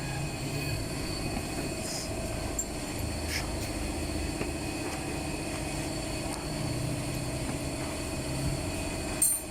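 Steady low mechanical hum with a few faint clicks and a brief break near the end.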